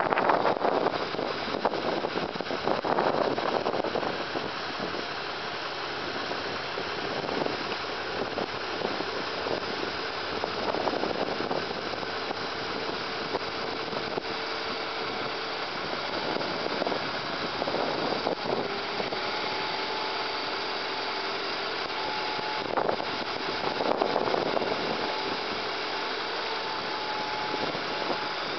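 1993 GMC TopKick bucket truck's engine idling steadily, with wind buffeting the microphone in the first few seconds. A faint steady whine joins the idle in the second half.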